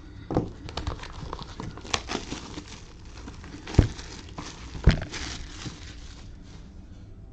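Plastic wrapping crinkling and tearing as a sealed trading-card box is unwrapped and opened, a run of quick crackles with two sharper knocks about four and five seconds in.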